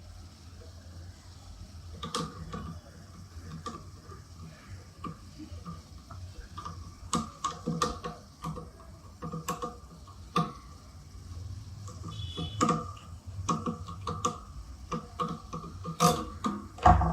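Irregular small clicks and taps of plastic and metal parts as a table fan's front guard is fitted and fastened by hand, over a low steady hum. There is a louder knock near the end.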